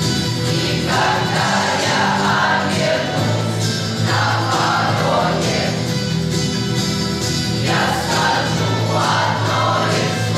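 Youth choir singing a song, with phrases entering about a second in and again near the end.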